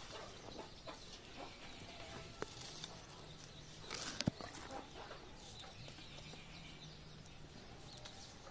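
Chickens clucking faintly, with a few sharp clicks and light rustles; the loudest cluster of clicks comes about four seconds in.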